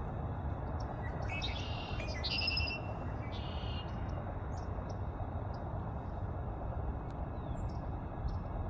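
Red-winged blackbirds calling: a cluster of buzzy, trilled calls between about one and four seconds in, then a few short chips, over a steady low rumble.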